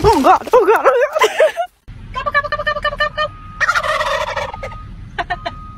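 A loud wavering, warbling pitched sound for the first second and a half, then several wild turkeys gobbling: two rapid rattling gobbles about a second long each, close together.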